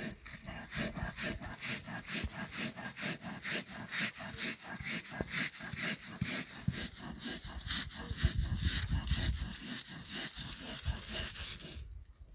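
Stone roller ground back and forth on a flat stone grinding slab (sil-batta), crushing salt with sesame, garlic and spices: an even, gritty scraping rhythm of several strokes a second that stops near the end.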